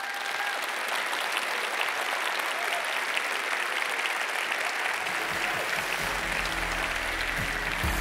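Audience applauding steadily at the end of a talk. About five seconds in, outro music with a low bass line comes in under the applause and grows louder.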